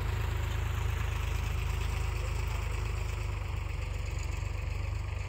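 Powertrac 34 hp diesel tractor engine running steadily with a low, even throb, easing slightly in the second half.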